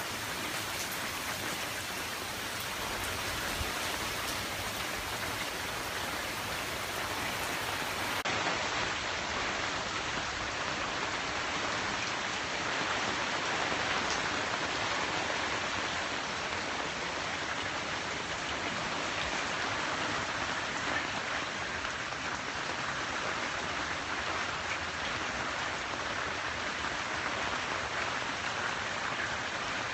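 Hard rain falling steadily, a dense even hiss of drops hitting the ground and nearby surfaces.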